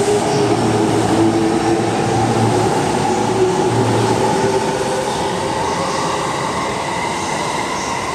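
JR East E233 series 1000 electric train running past the platform: a steady rumble of wheels on rail under the whine of its traction motors, which rises slowly in pitch as it gains speed. The sound slowly fades as the last cars go by.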